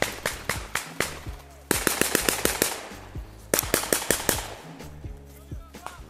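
Two bursts of rapid automatic rifle fire, each about a second long, the first a little under two seconds in and the second just past the middle, over background music with a steady beat.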